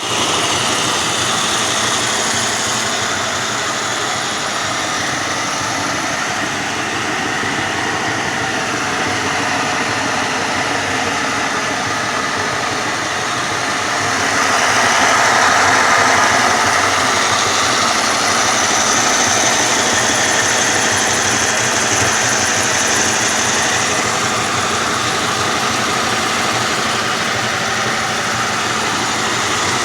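G scale model train, a steam locomotive with passenger cars, running on its track under DC power: a steady rolling rumble of wheels on rail with motor hum, louder for a few seconds about halfway through.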